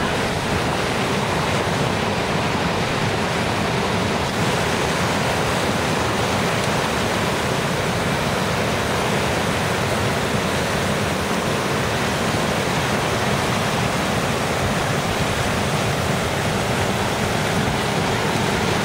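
Fast mountain river rushing over boulders in white-water rapids: a steady, unbroken sound of churning water.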